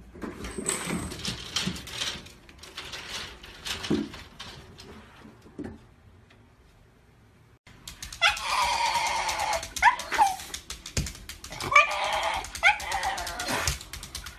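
Scattered knocks and rustling, then a black-and-tan Shiba Inu vocalizing loudly about eight seconds in: one long drawn-out whine, followed by several short rising yelps.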